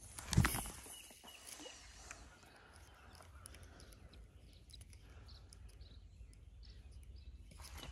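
Quiet lakeside ambience at dawn with faint bird calls, after a single brief thump about half a second in as the handline is cast.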